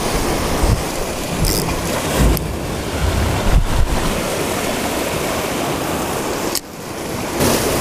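Surf breaking and washing over a rocky shoreline, with wind buffeting the microphone in low thumps. The noise drops suddenly near the end, then builds again.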